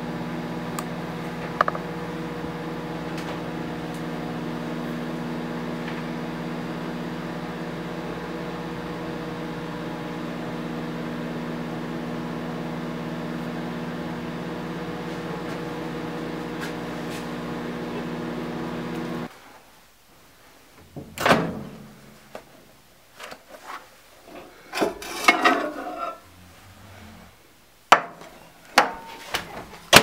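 Microwave oven running with a steady hum, with a few faint clicks over it. About two-thirds of the way through the hum cuts off suddenly, followed by scattered clicks, knocks and a short rattle as the oven is opened and the plate is handled and set down on a wooden table.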